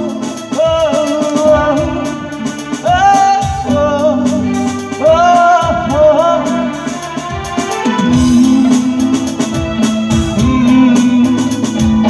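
Live band playing: a melodic lead line with bending, wavering notes over held low chords, with percussion hits keeping time.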